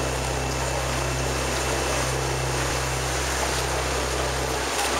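Steady drone of a canal tour boat's engine, heard inside its cabin, under a constant hiss of water and wind noise.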